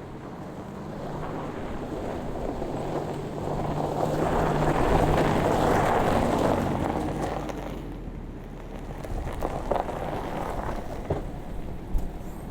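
A motor vehicle grows louder to a peak midway and then fades away, over wind noise on the microphone.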